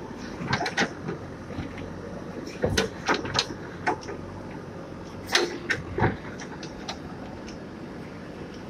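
JCB backhoe loader's diesel engine running steadily while its bucket digs into root-filled soil. Sharp cracks and knocks of the bucket working through roots and earth come in clusters about half a second in, around three seconds in, and around five to six seconds in.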